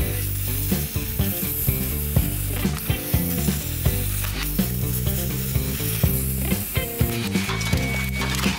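Steady hiss of a cutting torch burning through rusted car-body sheet metal, over background music.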